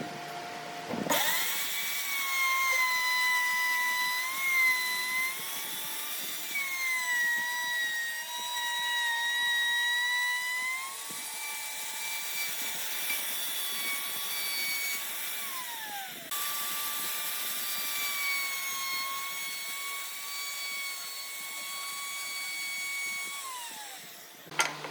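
Small electric power tool motor running with a high whine, its pitch dipping and wavering as it works the wood. It winds down twice, once midway and again near the end.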